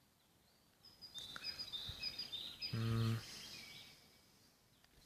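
Birdsong: a quick run of short, high chirping notes lasting about three seconds. Near the middle a brief low steady hum, like a voice, sounds for about half a second and is the loudest moment.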